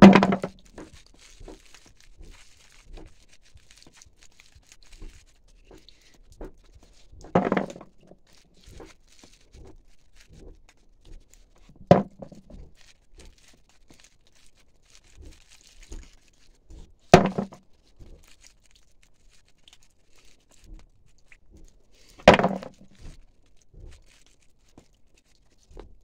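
Gloved hands shelling sweet chestnuts from their spiny burrs: faint crackling of the husks, broken by five louder thuds about five seconds apart.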